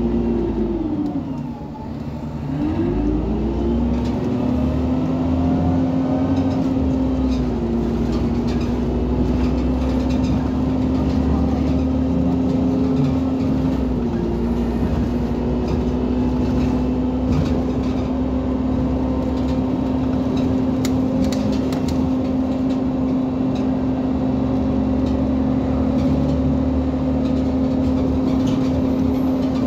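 Irisbus Citelis 18 articulated bus, with an Iveco Cursor 8 natural-gas engine and Voith D854.3 automatic gearbox, running under way. Its drivetrain whine rises and falls twice in pitch in the first few seconds, then holds steady, dipping briefly twice.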